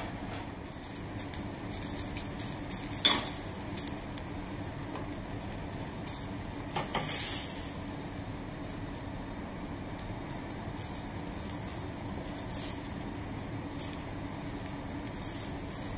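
Saucepan of water heating over a high gas flame, sizzling faintly as it comes up to the boil. There is a sharp click about three seconds in and a brief hiss around seven seconds.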